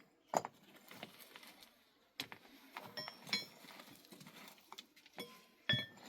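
Scattered knocks and short metallic clinks, several of them ringing briefly.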